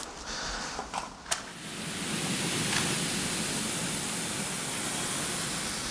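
Pyrotechnic mix of strontium salt with oxidant and fuel burning with a steady hiss, which starts about a second and a half in after a few light clicks.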